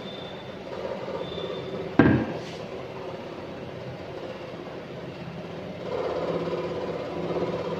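A kitchen wall-cabinet door being swung open, with one sharp knock about two seconds in, over a steady background hum.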